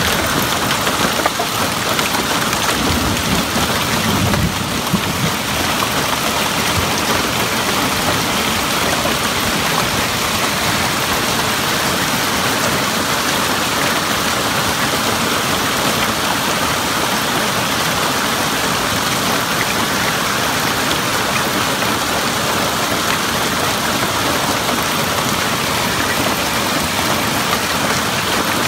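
Severe hail pelting down in a dense, steady clatter. A brief low rumble comes through about three to five seconds in.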